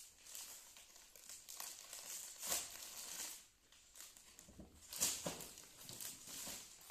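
Clear plastic garment packets crinkling and rustling as they are handled, with the sharpest crackles about two and a half and five seconds in.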